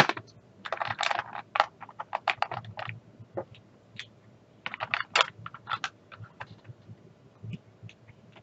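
Small plastic diamond-painting drill bottles clicking and clattering against each other and a plastic storage case as they are picked out and set into its compartments. The taps come in irregular clusters, thinning out after about six seconds.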